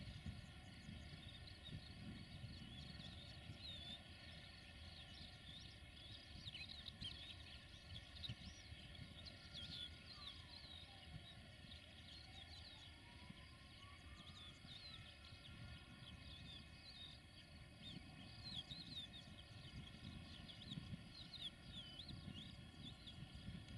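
Near silence: small birds chirping, over the faint low rumble of a freight train of tank wagons moving away.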